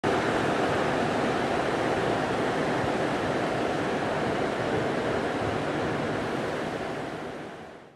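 Steady rushing of a coastal rainstorm, with wind, rain and surf blended together, fading out near the end.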